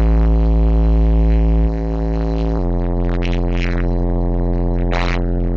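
Bass-heavy electronic music played loud through car subwoofers: long held deep bass notes that step down in pitch about two and a half seconds in.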